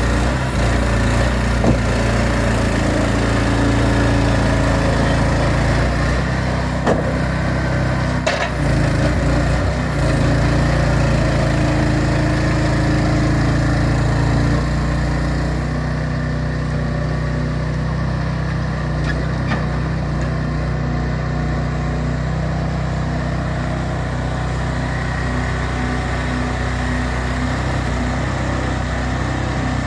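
An engine running steadily, its note shifting a few times, with a few short knocks.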